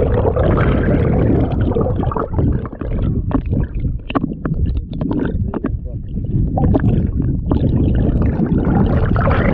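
Muffled rushing and gurgling of water around a camera held underwater, with a run of short clicks and knocks in the middle.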